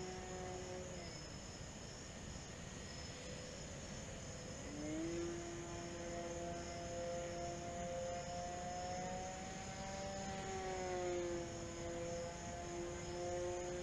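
Electric motor and propeller of an E-flite Night Visionaire RC plane whining in flight. The pitch drops about a second in, comes back up about five seconds in, rises a little, then falls again near the end, following the throttle.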